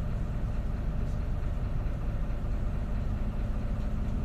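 Diesel engine of an Irisbus Agora S city bus idling steadily, heard from inside the passenger cabin as a continuous low hum.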